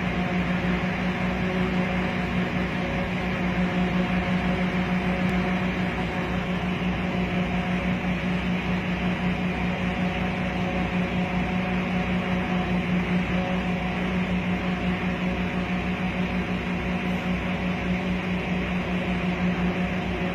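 A vehicle engine idling, a steady low hum with a fast even throb, heard from inside the cab.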